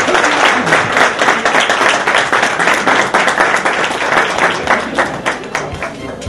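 Applause from a roomful of people: many hands clapping densely, thinning out and getting quieter near the end.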